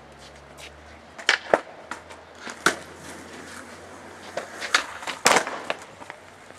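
Skateboard popping and slapping on concrete as a skater attempts a pop shove-it off a ledge: a series of sharp wooden cracks and clacks. Two come close together about a second and a half in, and the loudest cluster is about five seconds in.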